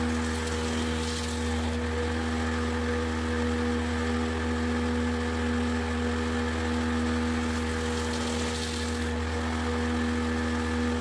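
Combination woodworking machine's jointer-planer running steadily, its electric motor giving an even hum. A higher rushing noise of the cutter head taking a linden board swells twice, near the start and about eight seconds in.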